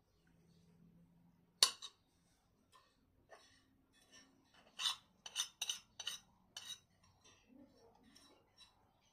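Cutlery clinking against a plate while eating: one sharp clink about a second and a half in, then a quick run of clinks a little after the middle.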